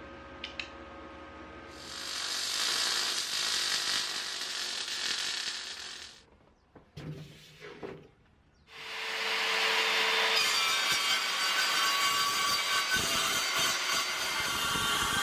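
About four seconds of MIG welding, a ragged sizzle. After a short quiet gap with a few light knocks, a handheld circular saw starts up and runs, then cuts through a sheet along a board guide for the last five seconds.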